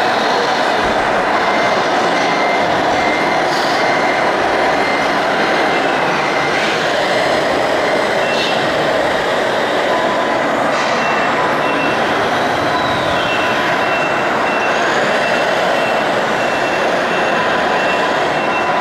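Steady mechanical din from radio-controlled model construction machines working on a dirt layout, with a high electronic beeping that repeats on and off, mostly through the second half, like a reversing alarm.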